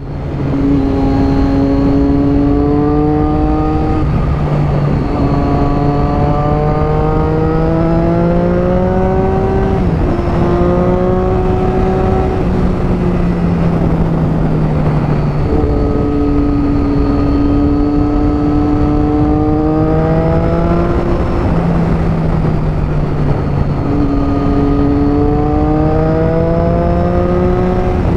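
Triumph Daytona 675R's inline three-cylinder engine accelerating through the gears on the move, its pitch climbing steadily in each gear and dropping back at each of several upshifts, over a steady rush of wind noise.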